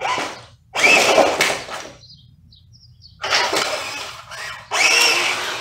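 Electric RC crawler tank on metal tracks driving on a concrete floor in four spurts of a second or so, its tracks and motors grinding loudly, with a short lull between.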